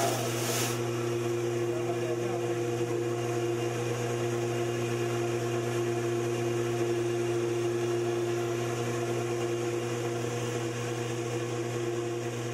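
Electric coffee mill's motor running with a steady hum while it grinds roasted coffee beans fed from its hopper. A brighter hiss stops under a second in.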